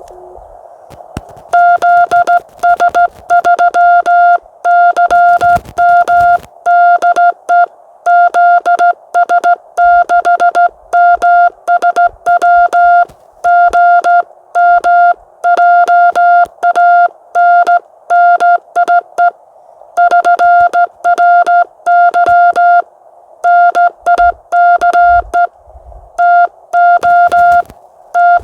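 Morse code (CW) from a ham radio transceiver: a single steady tone keyed on and off in dots and dashes. It starts about a second and a half in and runs on, over a band of hiss from the receiver.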